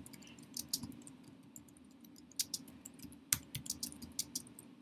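Typing on a computer keyboard: a quick, irregular run of single keystroke clicks.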